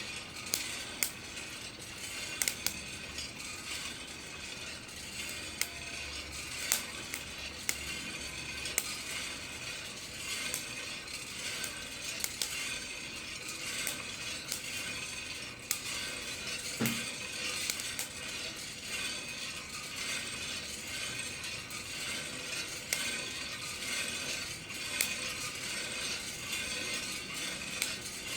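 Coffee beans popping (cracking) inside a Kaldi rotating drum roaster, with scattered sharp pops at irregular intervals over the steady rattle of the beans tumbling in the turning drum. There is one duller knock about two-thirds of the way through.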